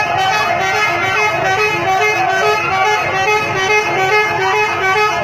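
Bus 'telolet' horn, a multi-tone musical horn, playing a quick tune of short notes that step back and forth in pitch.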